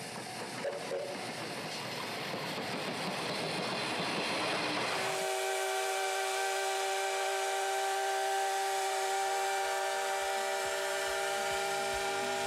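C58 steam locomotive's whistle blowing one long, steady blast with several tones sounding together, starting about five seconds in after several seconds of steady hissing.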